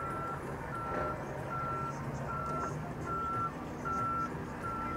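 A vehicle's reversing alarm beeping: one steady high beep repeated evenly about every 0.8 seconds, over a low engine rumble.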